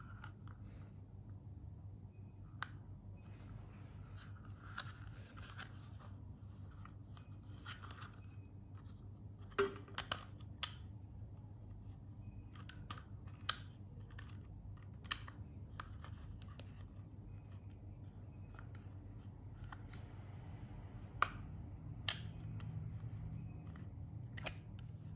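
Hard plastic water-bottle lid being handled: scattered sharp clicks and taps with light rubbing as the lid is turned in the hands and its hinged flip-up cover is worked, a few louder clicks near the middle and toward the end. A steady low hum runs underneath.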